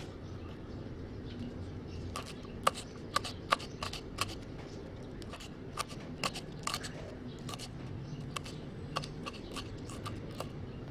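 Knife chopping fresh chilies on a wooden cutting board: irregular sharp taps of the blade on the board, starting about two seconds in.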